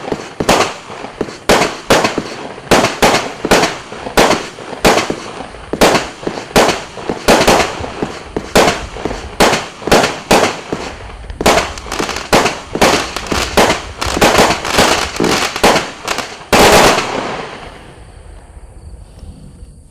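A 20 mm compound firework cake firing: a steady string of sharp shot reports, about two a second. About 16 to 17 seconds in comes one louder final volley, and then the sound dies away to a faint hiss.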